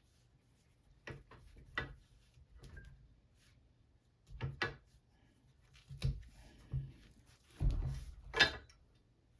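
Scattered light clicks and knocks of an Olympic barbell's metal parts and tools being handled, about eight in all, the loudest near the end.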